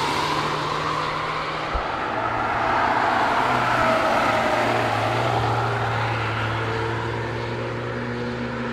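A camouflaged BMW test car driven hard on a race track: engine running under load with tyre and road noise as it corners and pulls away, its engine note shifting in pitch.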